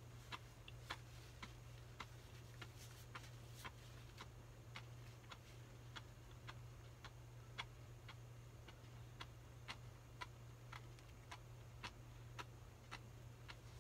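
Faint, even ticking, about two ticks a second, over a low steady hum.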